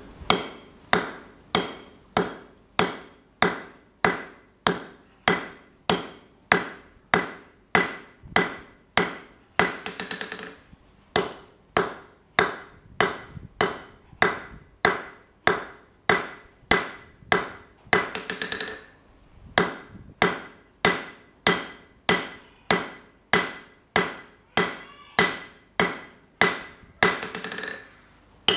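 Hand hammer striking red-hot steel rebar on an anvil, shaping the bar's end: steady blows about two a second, each with a short metallic ring. The rhythm breaks briefly three times, about a third of the way in, near two thirds, and near the end.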